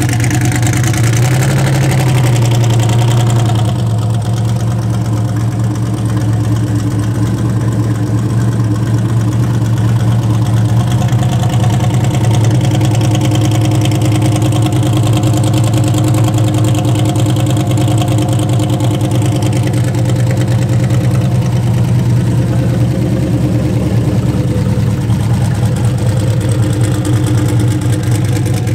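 Twin-turbocharged 427 LS-based V8 in a Buick Skylark idling steadily. Its revs lift slightly about a second in, then settle back to idle.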